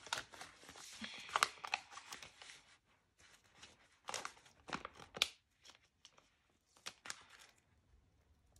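Paper sticker sheet crinkling and stickers being peeled off it and pressed onto a magazine page, in irregular rustling strokes. The handling is busiest in the first couple of seconds, with more strokes around four to five seconds in and once near seven.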